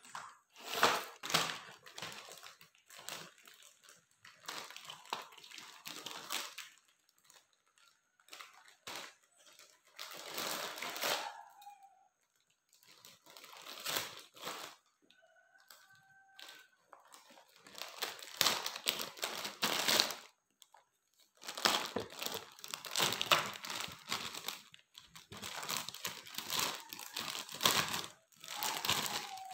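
Clear plastic packaging bag of toy building blocks being crinkled and torn open by hand, in irregular bursts with short pauses.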